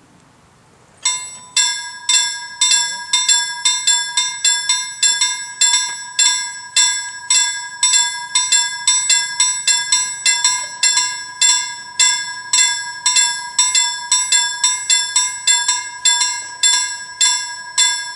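Level-crossing warning bell starting about a second in and ringing in quick, even strokes, about two to three a second, each stroke ringing on into the next. It is the crossing's warning that a train is approaching.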